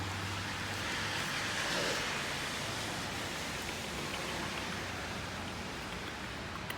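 Steady rushing noise with a low hum beneath it.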